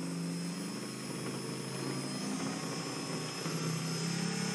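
Brushless model-aircraft motor spinning a quadcopter propeller at low throttle: a steady motor whine and propeller hum whose pitch shifts a few times and rises slightly as the throttle is turned up, already near the point of making lift.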